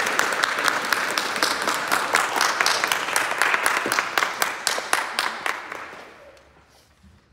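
Audience applauding, many hands clapping quickly together; the applause dies away about six seconds in.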